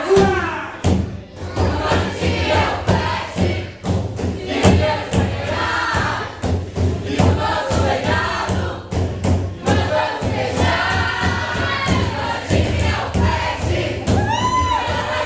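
Music: many voices singing together over a driving drum beat.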